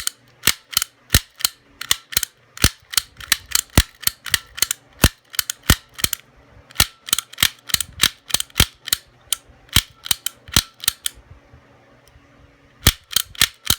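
A Sparrows tap gun snapping repeatedly into a Herculock 900 padlock's pin stack, sharp metallic clicks about two or three a second, with a short pause near the end before the clicking starts again. The lock is held under turning tension while the gun knocks the pins toward the shear line, and the lock has not yet opened.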